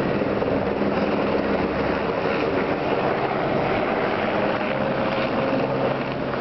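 Eurocopter AS355 F2 Twin Squirrel helicopter flying overhead and climbing away, its main rotor and twin Allison 250-C20F turboshaft engines running steadily at an even level.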